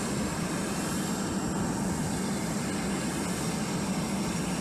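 Jet engine running steadily in an indoor test cell: an even rushing noise with a low hum underneath.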